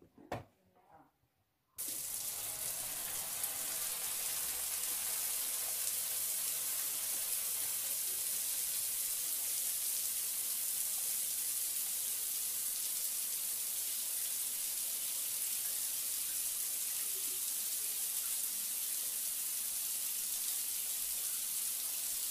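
Shower water running: a steady hiss of spray that starts suddenly about two seconds in and stops abruptly just before the end. A few light knocks come in the first second.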